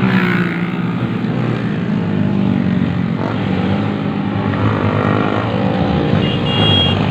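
Road traffic: motorcycle and car engines running steadily close by, with a brief high-pitched tone near the end.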